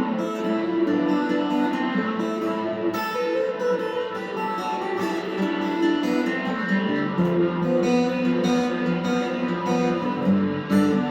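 Lâg HyVibe acoustic guitar being played without singing: picked notes and chords that change every second or so and ring on.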